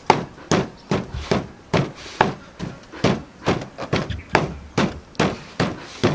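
Wooden pestle pounding chilies and garlic in a wooden mortar: steady, evenly spaced thuds, about two and a half a second.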